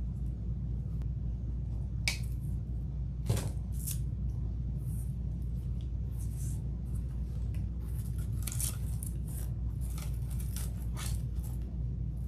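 Rustling, scratching and a few sharp clicks of artificial floral picks and their wire stems being handled and pushed into a grapevine wreath, over a steady low hum.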